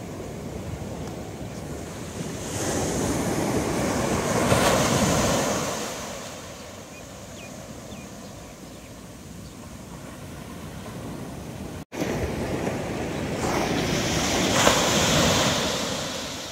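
Small ocean waves breaking and washing up a sandy beach: two swells of surf about ten seconds apart, each building and then fading, with the sound cutting out for an instant just before the second.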